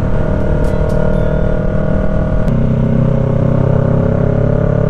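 Motorcycle engine running at a steady cruise, a steady drone over a constant rush of wind and road noise. The pitch sags slightly, and the lower engine note grows stronger about two and a half seconds in.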